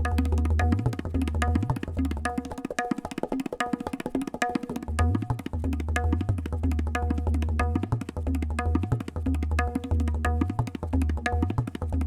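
Tabla played solo: quick, dense strokes on the dayan ringing at its tuned pitch, over bass strokes from the bayan that swell and fade again and again. It is a drill on the bol phrase 'dha tit Getetaga Getetaga'.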